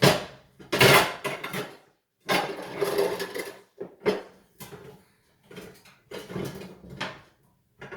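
Dishes and pans clattering and knocking in several bursts as they are moved about while a smaller baking dish is searched for.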